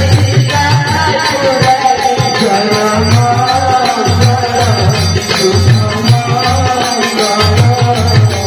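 Hindu devotional music: a wavering sung melody over a steady, repeating hand-drum rhythm.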